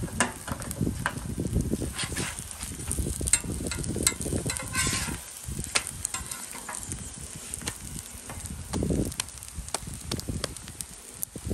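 Stuffed flatbreads sizzling in oil on a hot Blackstone flat-top griddle, a steady hiss broken by frequent clicks and knocks from a metal spatula working on the steel.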